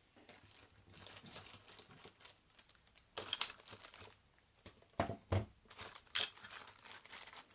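Faint rustling and crinkling of packaging as alarm sensors and accessories are handled, with a few sharper crinkles or light knocks about three seconds in and again between five and six seconds.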